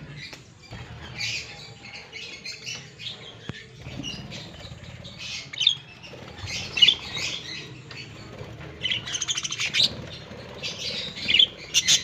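A flock of budgerigars chirping and chattering in short, overlapping high calls, with a few louder squawks.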